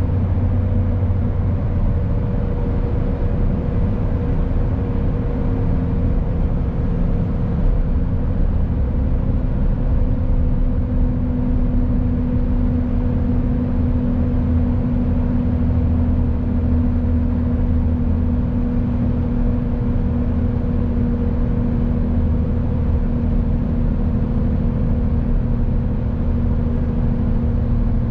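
Mercedes Actros truck driving at a steady speed: a constant low engine drone mixed with road and tyre noise, its hum holding a near-steady pitch.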